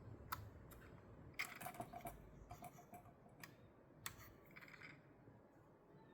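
Faint clicks and light rattling of small plastic and metal drone parts being handled and worked by hand: a few single sharp clicks and two short runs of quick ticks.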